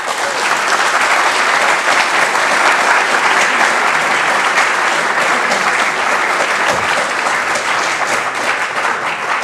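Large audience applauding, a dense, steady clatter of many hands clapping.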